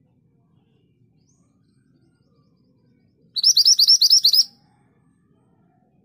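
A minivet calls once, a quick run of about eight high, rising chirps lasting just over a second, about halfway through.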